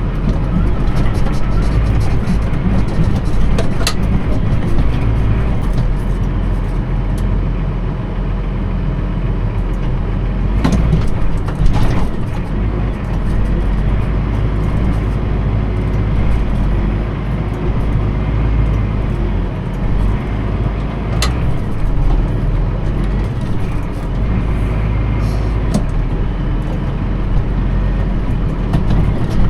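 A vehicle engine running steadily, with a few short knocks or rattles.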